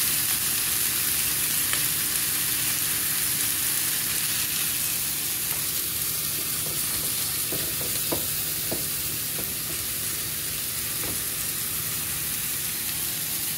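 Steady sizzling of food frying on a gas stovetop: enchilada-marinated chicken legs grilling on a grill pan and beans frying in a skillet. A few faint clicks come around the middle.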